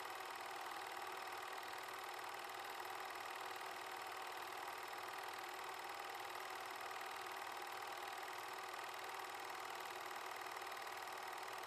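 8mm film projector running: a steady mechanical whir with a fast, even clatter of the film-advance mechanism, unchanging throughout.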